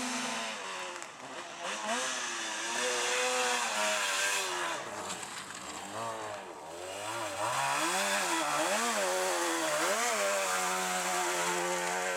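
Two-stroke rally car engine at hard revs, its pitch climbing and falling over and over, then holding a steadier, higher note for the last couple of seconds.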